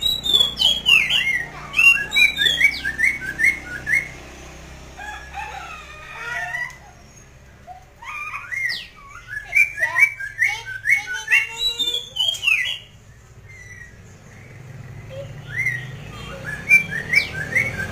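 A poksay mandarin, a laughingthrush kept as a cage songbird, singing loud whistled phrases of quickly repeated falling notes. There are four bursts with short pauses between them, as a bird in full song.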